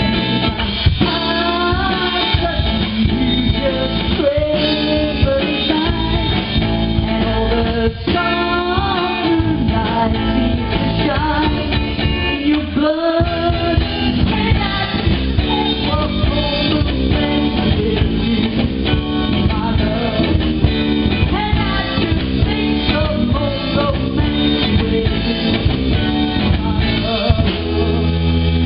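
Live band playing a song: bass and guitar with a drum kit, and a singer's voice over them at times.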